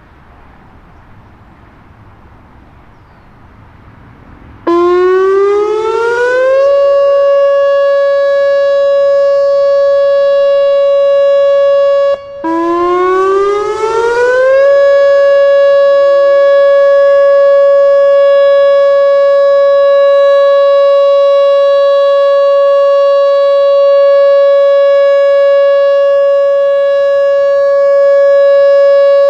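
Whelen WPS-2910 electronic outdoor warning siren sounding its steady alert signal. About five seconds in it starts with a rising wind-up of a couple of seconds to a loud steady tone. Near the middle it cuts out for a moment, then rises again and holds the steady tone.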